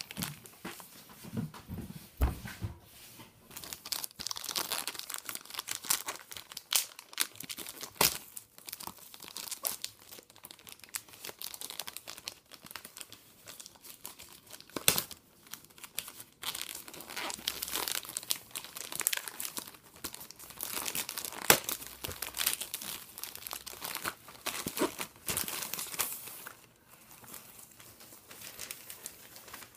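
Packaging being opened by hand: irregular crinkling, rustling and tearing of plastic and paper wrapping around a boxed wireless keyboard.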